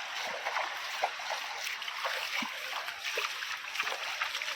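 Stream water running and splashing: a steady rushing hiss with small splashes.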